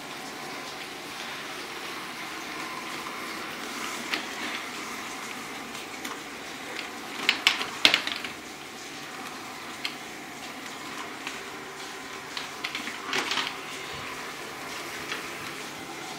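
LG Roboking robot vacuum cleaner running, a steady whirring hiss, with a short cluster of clattering knocks about halfway through and a smaller one later on.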